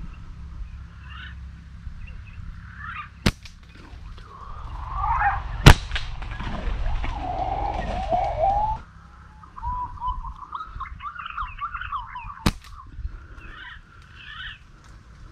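Birds calling in short whistled, warbling phrases, with three sharp snaps of a slingshot being fired; the loudest snap comes about five and a half seconds in.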